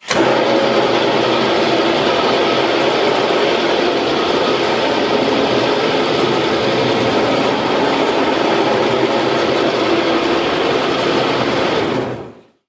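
Lupato Varia bush-hammering head rotating on a wet marble slab, its hammer tips striking the stone for a coarse bush-hammered finish: a loud, steady mechanical din that fades out near the end.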